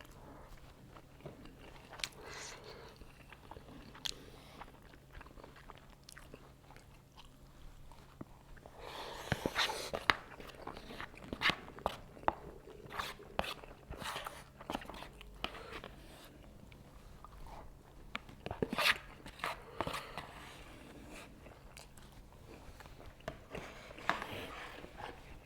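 A person eating ramyeon noodles: close-up chewing and mouth noises with sharp clicks, busiest in a stretch a third of the way in and again in short spells later on.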